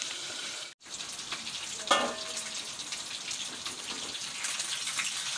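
Pieces of pre-boiled, spice-marinated chicken frying in hot oil in a small pan, with a steady sizzle and crackle as they are turned with a spatula. A short, louder sound comes about two seconds in, and the sound drops out for a moment just before it.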